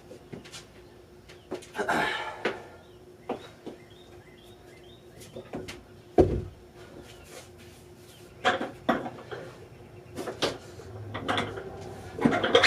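Scattered clicks and knocks of barbell equipment being handled, with one dull thump about six seconds in, over a faint steady hum.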